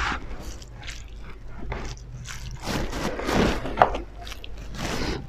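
Fingers mixing rice with dal and curry on plates: soft, wet squishing and scraping in short, irregular bursts, with one sharper tap a little before four seconds in.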